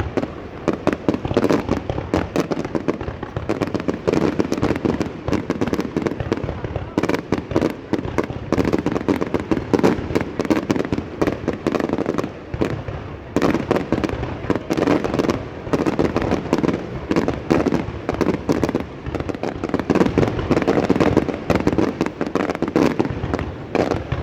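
Many fireworks going off at once in a dense, unbroken run of overlapping bangs and crackles.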